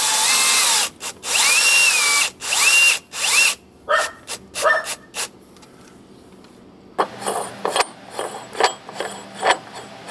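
Cordless drill/driver driving a screw into a through-hull strainer cage on a wooden hull, in several short trigger bursts, its motor whine rising at the start of each. After a pause, a run of quick clicks.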